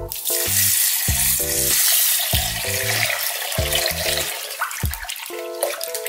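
Water poured from a glass jug into a glass bowl of rice, a steady splashing pour lasting about four and a half seconds, then softer sloshing as the rice is rubbed by hand in the water.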